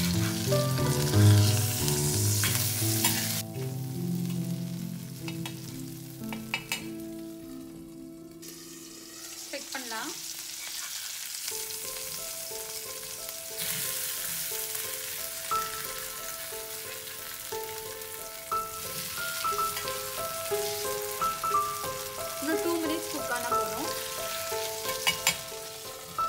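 King fish steaks sizzling as they shallow-fry in hot oil in a pan, the sizzle thinning for a few seconds after about four seconds in, with a few light knocks of the metal spatula and glass lid. Soft background music with stepping notes plays underneath.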